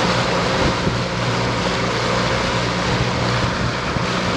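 Outboard motor on an aluminum bass boat running steadily under way, with a broad rush of wind and water over it.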